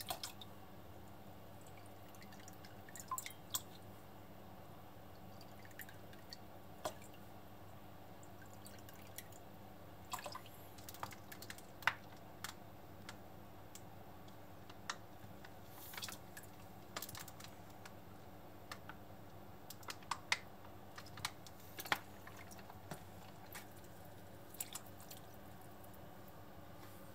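Faint, scattered light clicks and drips as liquid seasonings are measured in a metal tablespoon and tipped into a pot of water, over a steady low hum.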